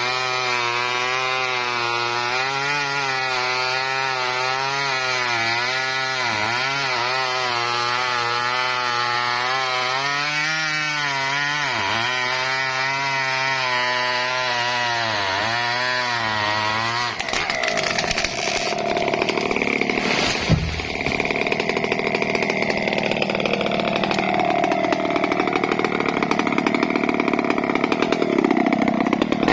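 Two-stroke chainsaw running steadily at high revs, cutting mahogany, its engine note dipping briefly several times. A bit over halfway through, the sound turns rougher and noisier, with a single sharp knock shortly after.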